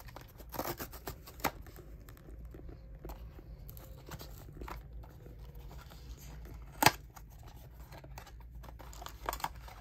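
Small cardboard blind box being opened by hand: fingers scratch and pick at the top flap with scattered small clicks and rustles, and there is one sharp snap about seven seconds in. Near the end, the white paper wrapper inside rustles as it is pulled out.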